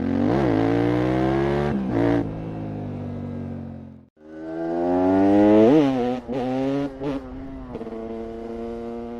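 KTM 690 SMC R single-cylinder engine through a full LeoVince exhaust, revving hard and then pulling at a steadier note. This happens in two passes, with a short break about four seconds in.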